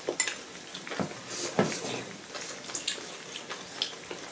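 Scattered light clinks and scrapes of utensils against bowls and a tabletop hotpot, with some liquid stirring in the broth.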